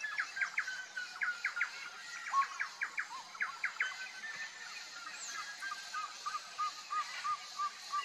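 Wild birds calling: quick groups of three or four sharp, high notes about once a second in the first half, then a steady run of short arched calls, about three a second, near the end, over a faint background hiss.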